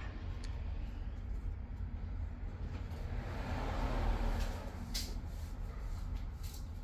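Caterham 7 620S's supercharged four-cylinder engine running steadily with a low rumble, swelling briefly around the middle under a slight touch of throttle, with a single click about five seconds in.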